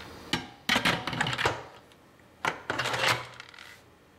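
Electric pressure cooker lid being set on and twisted shut, with metal clattering and scraping in two bursts: one starting just under half a second in and one about two and a half seconds in.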